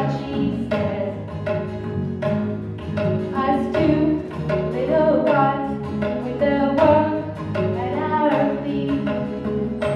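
A woman sings a melody over a small live band of acoustic guitars and tabla, the tabla strokes keeping a steady beat.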